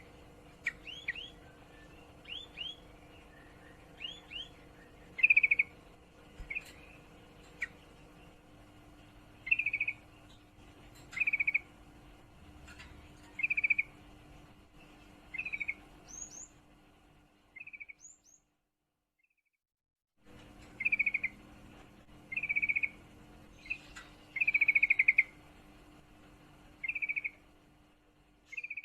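Female yellow-vented bulbul (trucukan) calling repeatedly: short chattering notes about half a second long, every second or two, with a few thin high rising notes among them. This is the 'ngriwik' call of a female in breeding condition calling to males. A dead gap of about two seconds breaks the calling partway through.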